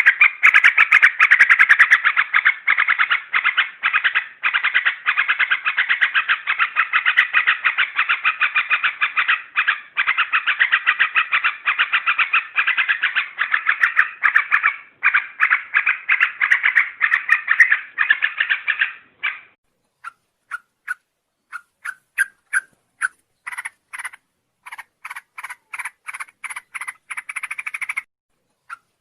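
Yellow-vented bulbul (trucuk) song played as a lure (pikat) recording. Dense, unbroken rapid chattering gives way, about two-thirds of the way through, to separate short notes with gaps between them.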